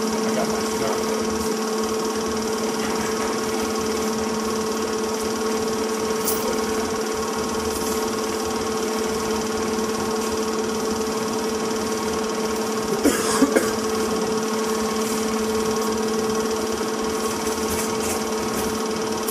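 Film projector running: a steady mechanical whir and hum of the motor and film transport. A few short clicks come about two-thirds of the way through.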